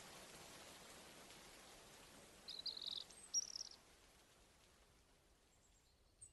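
Faint steady rain hiss slowly fading out, with a brief flurry of bird chirps in the middle and one more chirp near the end.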